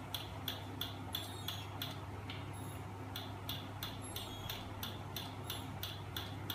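Homemade magnet engine rig, driven by a small 12 V electric motor, running: a steady low hum with a sharp mechanical click repeating evenly about three times a second.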